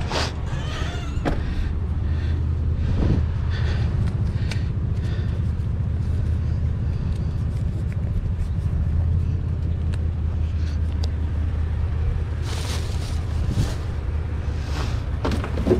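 Pickup truck engine idling steadily, with a few light knocks near the end.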